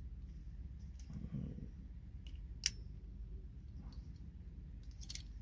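Small plastic clicks from handling camera mount parts: one sharp click a little past halfway and a few quicker clicks near the end, over a low steady hum.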